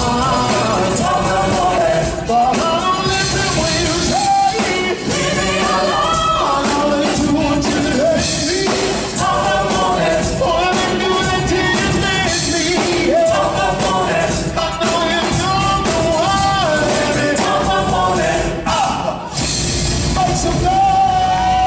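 Live concert music: a sung vocal line over loud backing music, with a short drop in the music about 19 seconds in.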